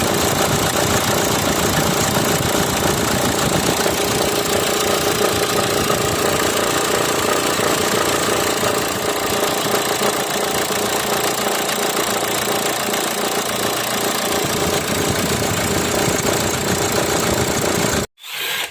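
2014 Kia Sportage engine running with a steady mechanical noise from the belt-driven accessories, which the mechanic traces to a failing alternator pulley and tensioner. The sound cuts off suddenly near the end.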